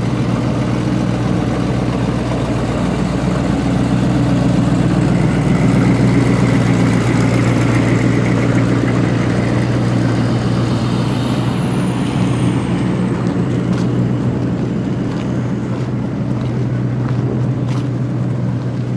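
Motor vehicle engine running steadily with a low hum. A faint high whine slides down about twelve seconds in, and a few short clicks come near the end.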